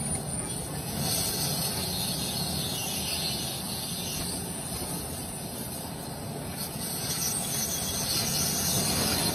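Twin-shaft industrial shredder running steadily, its toothed cutters turning against a steel gas cylinder they have not yet bitten into. The noise grows a little louder near the end.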